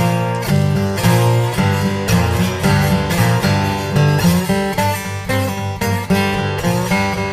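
Background music: acoustic guitar, picked and strummed in a steady rhythm over low bass notes.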